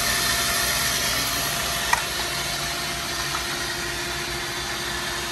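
Pump of a reverse-osmosis membrane cleaning machine running steadily, circulating water through the membrane, with a faint hum under it. There is one sharp click about two seconds in.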